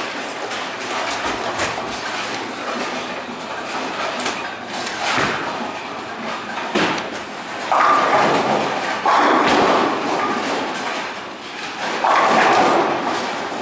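Tenpin bowling alley clatter: a bowling ball rolls down the lane and crashes into the pins, with knocks and further pin crashes from the neighbouring lanes over a steady hall rumble.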